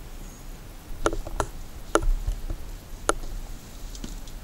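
Four sharp, irregularly spaced clicks or light knocks over a low handling rumble, the kind made by steps and small objects knocking in an empty room.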